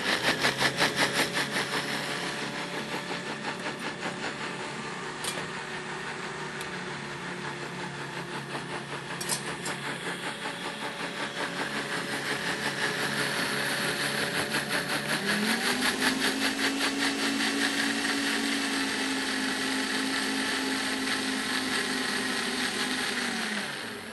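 Countertop blender running full of a thick cashew and pimento cheese sauce: a steady motor hum with a fast churning pulse. About fifteen seconds in the pitch steps up and holds higher, and the blender winds down and stops near the end.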